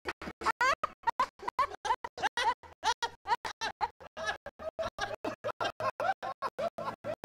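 Laughing voices cut on and off about seven times a second by a stuttering edit effect, giving a choppy, scratchy sound.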